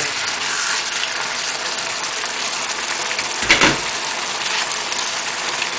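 Thick, reduced chicken curry bubbling and sizzling in a wok as it is stirred with a wooden spatula. A single clunk about three and a half seconds in.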